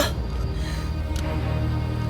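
Background music with sustained low notes and a dark, steady tone.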